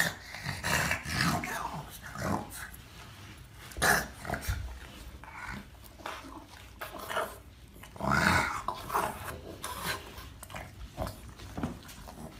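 Boston terrier growling in short, irregular bursts while it rolls and rubs itself on carpeted stairs, louder twice, about four and eight seconds in.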